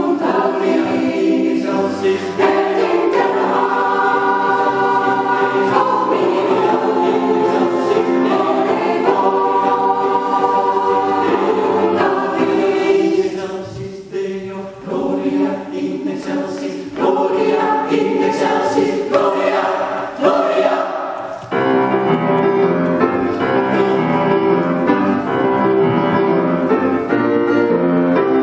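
Mixed choir of women's and men's voices singing in sustained chords. The singing grows softer for several seconds in the middle, then the full sound returns for the last third.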